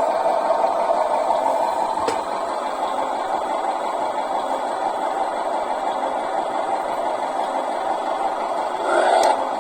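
A stock, unmodified engine idling steadily, with a single click about two seconds in and a brief swell in the sound near the end.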